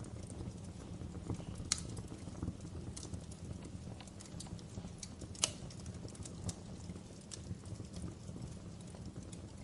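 Wood fire crackling in a fireplace: irregular sharp pops and snaps over a steady low rumble, with the two loudest pops coming about two and five and a half seconds in.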